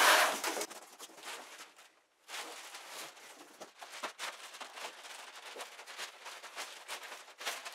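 Long cardboard shipping box being opened and plastic-wrapped rocker panel covers pulled out: rustling cardboard and crinkling plastic sheeting with scattered clicks, loudest at the start and briefly breaking off about two seconds in.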